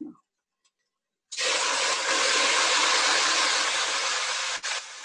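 Wet, soaked rice hitting hot oil and fried onions in a pot, sizzling: a loud hiss starts suddenly about a second in, holds steady for about three seconds, then dies down near the end.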